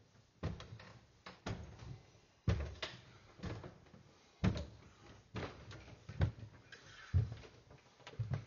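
Footsteps climbing carpeted stairs: a dull thud with each step, roughly one a second.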